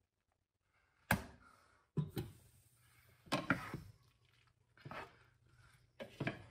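Drained cavatelli tumbling from a plastic colander into a stainless steel skillet, then a wooden spatula tossing the pasta and broccoli, knocking sharply against the pan about once a second over a faint steady hiss.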